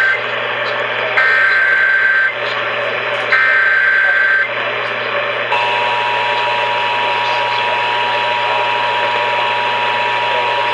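Emergency Alert System signalling over radio hiss. It begins with the end of one SAME digital header burst, then two more warbling data bursts about a second long each. About five seconds in, the steady two-tone EAS attention signal starts and holds.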